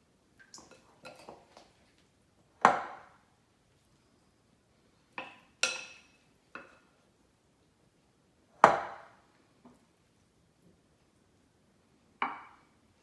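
Separate clinks and knocks of dishes and utensils, some with a short ring. They come at uneven intervals, about eight in all, and the two loudest fall about a quarter and two thirds of the way through.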